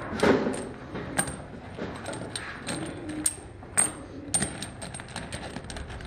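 Steel motorcycle front sprockets clinking against each other as they are picked from a loose pile and stacked by hand. Irregular sharp metallic clinks, several a second, each with a bright ringing edge.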